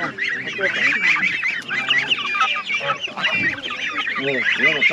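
A crowd of caged chickens clucking and calling, many short calls overlapping at once with no pause.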